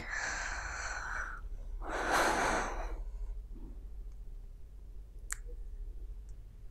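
A woman breathing out audibly twice: a long breath at the start, then a louder, heavier sigh about two seconds in. A brief small click follows about five seconds in.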